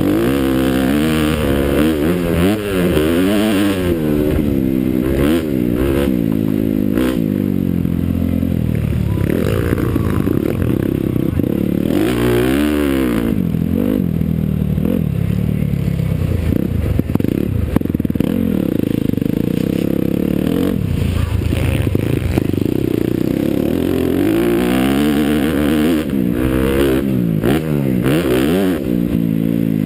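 Honda CRF250R's single-cylinder four-stroke engine heard from on board, its pitch climbing and dropping again and again as the bike is ridden hard.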